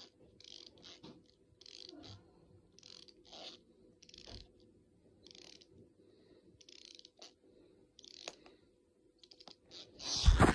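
A small plastic McDonald's wind-up toy being wound: short scratchy clicking strokes from its ratchet winding mechanism, repeated irregularly every half second or so, with a louder thump near the end.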